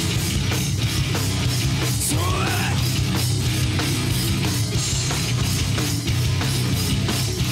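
Live heavy metal band playing: distorted electric guitars and bass guitar over a steady, driving drum kit beat.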